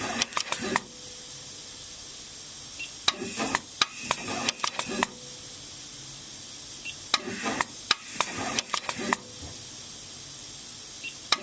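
West Bond 4700E semi-automatic ball bonder working through bump-bonding cycles: short bursts of rapid mechanical clicks, mostly in pairs about every four seconds, over a steady hiss.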